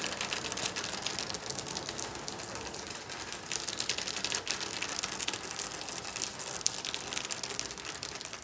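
Dense, irregular pattering of falling drops, many small clicks over a steady hiss.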